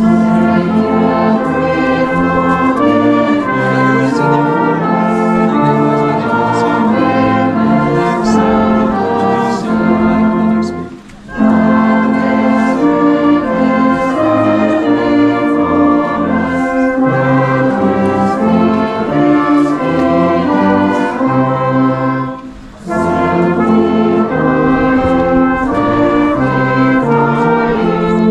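Brass band playing a tune in held chords, with brief breaks between phrases about 11 and 23 seconds in.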